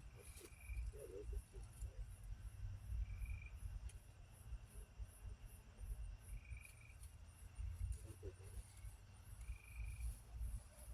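Crickets chirping: a high pulsing chirp about three times a second, with a short trill repeating about every three seconds. Wind rumbles on the microphone underneath.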